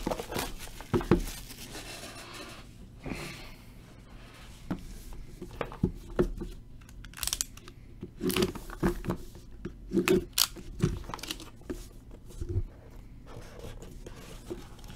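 Plastic shrink-wrap being torn and peeled off a cardboard trading-card hobby box, with scattered crinkles, scrapes and light taps of hands on the box.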